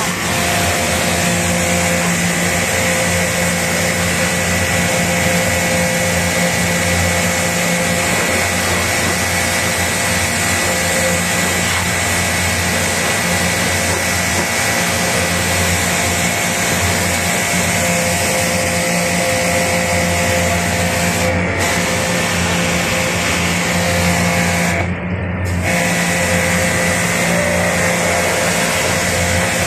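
Pressure washer running and spraying water onto a rooftop package AC unit during a maintenance wash, a steady motor hum under the hiss of the spray. The spray cuts off briefly twice near the end while the motor keeps running.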